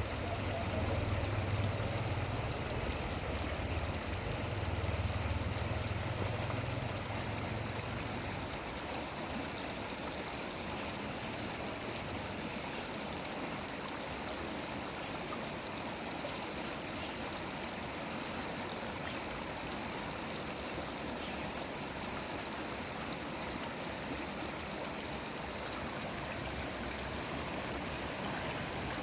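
A stream of water flowing steadily, a continuous rushing and trickling, with a low rumble under it for the first eight seconds or so that then drops away.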